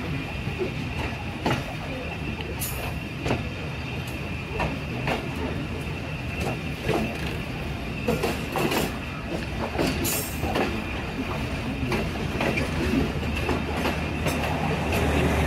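Tezgam passenger train running on the track, heard from its rear coach: a steady rumble broken by irregular sharp clacks of the wheels over rail joints, with a thin steady high tone above. A deeper hum sets in near the end.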